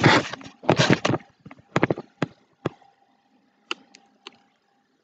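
Handling noise from a camera being moved and set in place: about a second of loud rubbing and scraping against the microphone, then a string of sharp knocks and taps that thin out.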